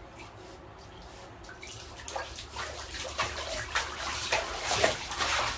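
Water splashing: a faint background gives way, about two seconds in, to irregular splashes that come faster and louder toward the end.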